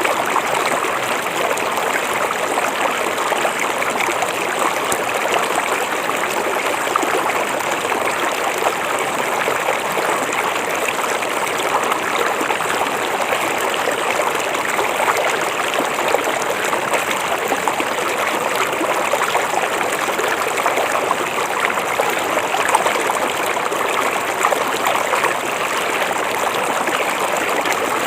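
River water flowing and babbling over rocks, a steady rushing with fine splashing and trickling.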